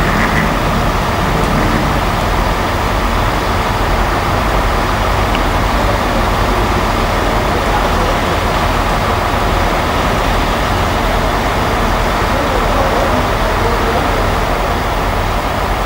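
HST (InterCity 125) passenger train running along the far platform, giving a steady, even noise without any distinct knocks or horn.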